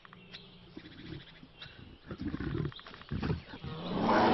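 Brown bears growling: short, low aggressive growls about two seconds in and again a second later, then a louder growling roar building near the end, the sound of bears in conflict over food.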